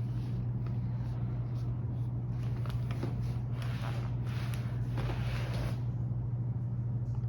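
A steady low hum, with a few soft rustling sounds about two and a half, four and five seconds in.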